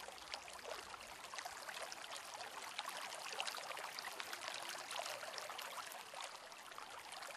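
Faint, steady water ambience, a wash of trickling and splashing with many small drip-like ticks.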